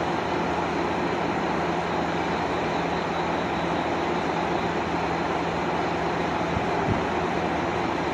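Limited express diesel railcar standing with its engine idling: a steady, even hum that does not change, with a faint knock about seven seconds in.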